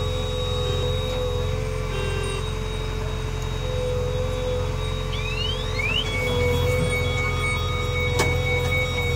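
JCB backhoe loader's diesel engine running with a steady low drone and a steady whine above it. About five to six seconds in come short rising whines, and the engine gets a little louder.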